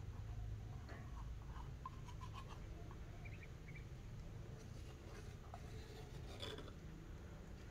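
Quiet room background: a steady low hum with scattered soft clicks and a few brief, faint high chirps, a cluster of louder clicks coming about six seconds in.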